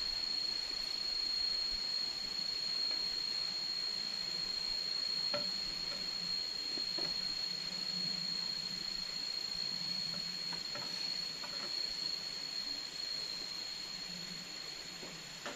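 Forest insects, cicadas, droning on one steady high-pitched tone over a hiss of background noise, with a few faint knocks.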